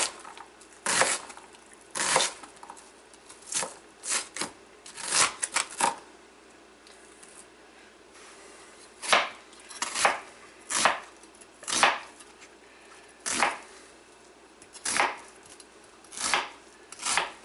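Chef's knife dicing an onion on a plastic cutting board: separate, unhurried knife strokes about one a second, with a pause of a few seconds near the middle.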